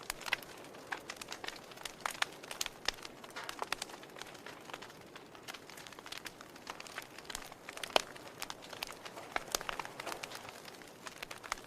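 Wood fire in a fireplace crackling: irregular sharp pops and snaps over a soft hiss, with one louder pop about eight seconds in.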